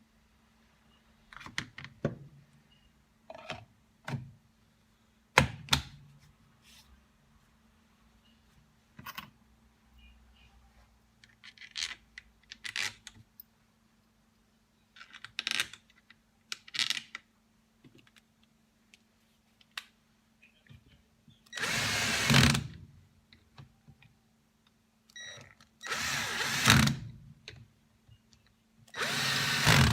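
Bosch GBH 2-26 rotary hammer switched on in three short bursts of about a second each in the last third, after a stretch of scattered clicks and knocks of the tool being handled. A faint steady hum runs underneath.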